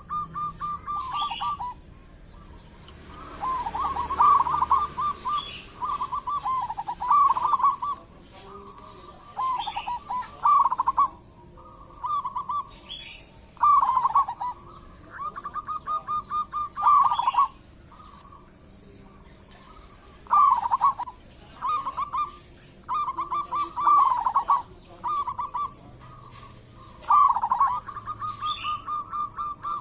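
Zebra dove (perkutut) cooing: repeated phrases of rapid, stuttering notes, a new phrase every two to three seconds. This is the kind of call played as a lure to set other doves calling.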